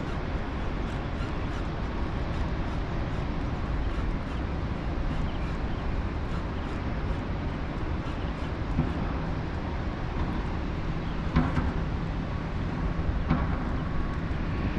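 Steady rushing outdoor noise with a low rumble, and a couple of short knocks near the end.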